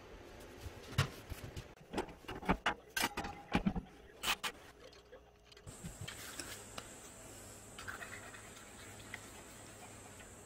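Steel knife blade handled with gloved hands at a metal bench: a quick, irregular run of knocks, clicks and scrapes. About five and a half seconds in this gives way to a faint steady hum with a thin high whine.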